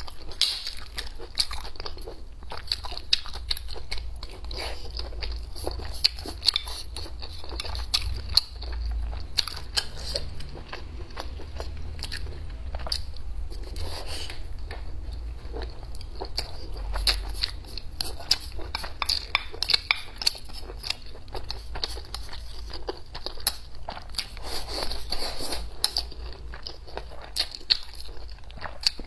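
Close-miked chewing and biting of food: a steady run of quick, irregular mouth clicks and smacks.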